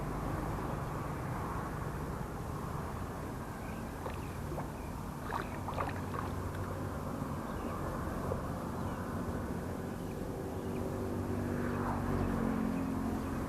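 A motor running with a low, steady rumble. A few short clicks come about four to six seconds in, and an engine hum grows louder after about ten seconds.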